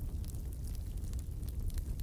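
Fire burning in a fireplace: a steady low rumble with a few light crackles.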